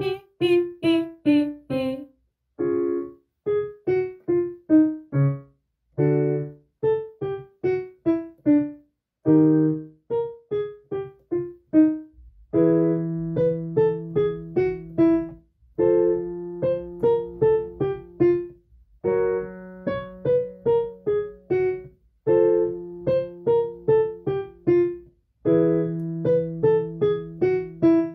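Piano playing a vocal warm-up accompaniment: repeated runs of short, detached staccato notes stepping downward, each run opening with a chord. From about halfway through, a low note is held under each run.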